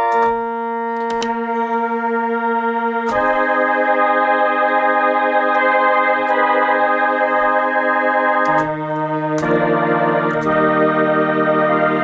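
ARP Solina String Ensemble playing held chords on test after repair, sounding okay. The chords change about three seconds in, then three times in quick succession late on.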